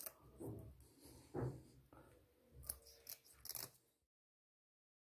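Kitchen scissors snipping the fins off small scaled rotan (Amur sleeper) fish: a handful of faint crisp cuts a second or so apart, the loudest about a second and a half in and near the end.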